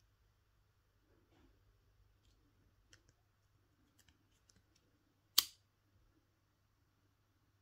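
Disposable flint lighter struck once about five seconds in: a single sharp click of the spark wheel. Faint small handling ticks come before it.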